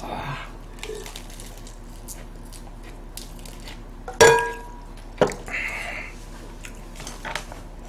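Small eating and table noises: scattered soft clicks and a brief rustle, with one sharp clink of tableware about four seconds in that rings briefly.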